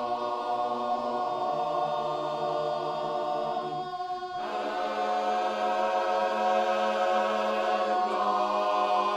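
Male barbershop chorus singing a cappella in close harmony, holding long sustained chords. The chord breaks off briefly about four seconds in, then a new chord swells and is held.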